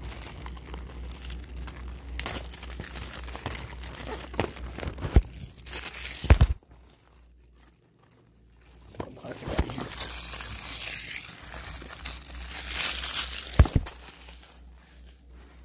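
Plastic wrapping crinkling and tearing as it is pulled off a DVD case, stopping for a moment about halfway. A few sharp knocks stand out, the loudest about six seconds in.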